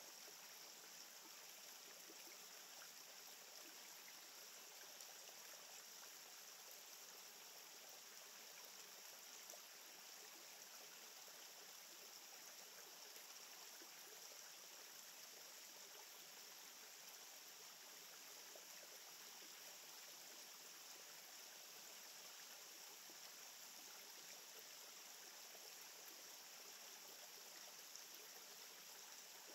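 Near silence: a faint, steady outdoor hiss with no distinct events.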